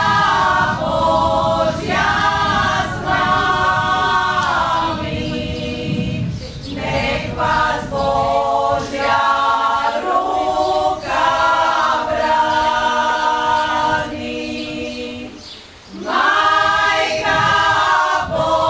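A group of voices singing together in harmony, in sung phrases with short breaks between them.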